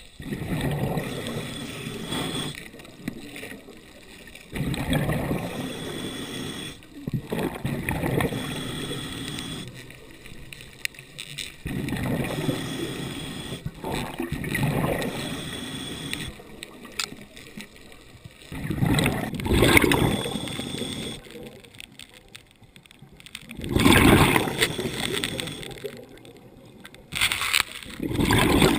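Underwater breathing of a scuba diver: a bubbly rush of exhaled air from the regulator every few seconds, with quieter stretches between breaths, mixed with faint handling noise against the camera housing.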